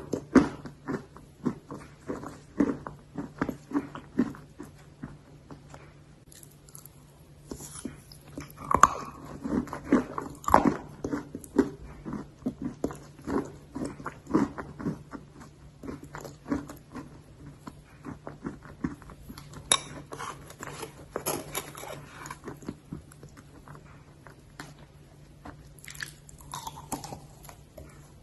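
Close-up biting and chewing of dry baked clay or chalk: a long run of irregular crisp crunches, with a low steady hum underneath.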